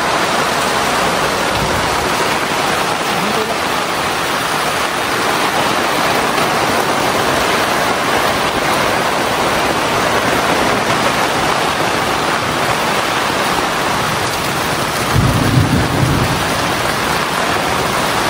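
Heavy downpour pelting a tent canopy and the gravel ground, a dense, steady hiss. A short low rumble of thunder comes about fifteen seconds in.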